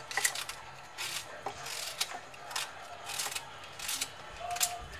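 Kitchen knife slicing through a raw red onion held in the hand: a series of short, faint cuts, roughly one every half second to second.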